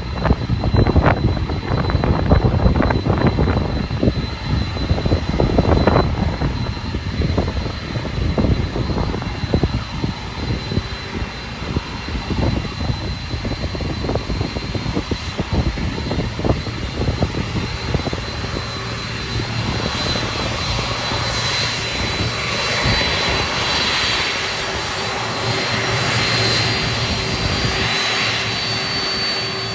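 Boeing 747 freighter taxiing past, its four jet engines at low thrust giving a steady high whine and rushing hiss that grow louder in the second half as it comes close. Gusty wind rumbles on the microphone through the first half.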